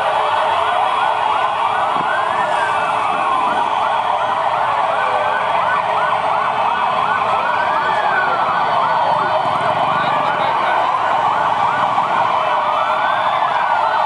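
Many police motorcycle sirens and horns sounding together in one continuous, deafening din. A slow wail rises and falls about every five seconds over rapid yelping sirens and a thick mass of horns honking.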